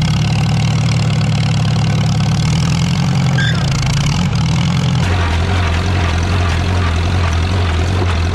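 Farmall C tractor's four-cylinder engine running, a steady loud low hum whose pitch drops lower about five seconds in.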